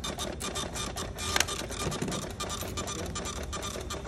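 Receipt printer running: a rapid, even chatter of clicks, with one louder click about a second and a half in.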